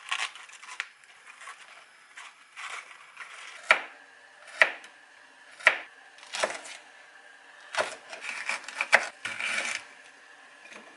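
Kitchen knife chopping green chili peppers and onion on a plastic cutting board: about half a dozen sharp knocks, irregularly spaced, with crunchier cutting between them near the end. Lettuce leaves rustle at the start.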